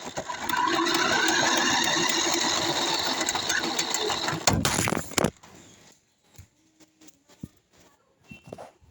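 Electric motor and gears of an RC car whining as it drives, the pitch rising as it speeds up. It cuts off suddenly about five seconds in, followed by a few faint clicks.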